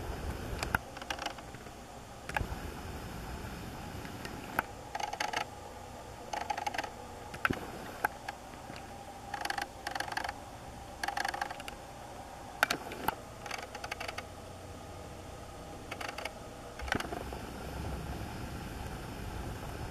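Camera handling noise: scattered sharp clicks and short clusters of mechanical rattling, over a steady low rumble.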